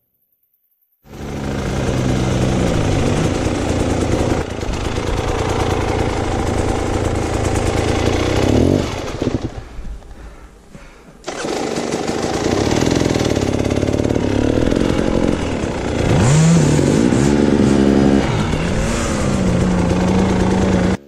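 Enduro dirt bike engine revving hard under load on a steep hill climb, its pitch rising and falling with the throttle. It starts about a second in, drops away for about two seconds near the middle, then comes back in suddenly and revs again.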